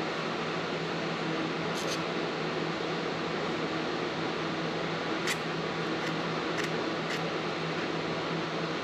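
A handful of short, faint scrapes of a needle file drawn along the edge of a piston ring to deburr it, over a steady machine hum.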